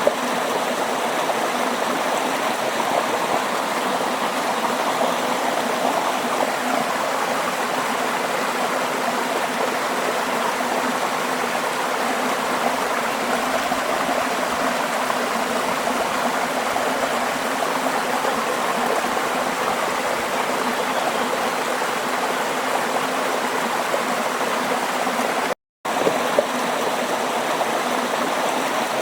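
Steady flowing water, a continuous even rush like a stream. The sound cuts out completely for a fraction of a second near the end, then resumes unchanged.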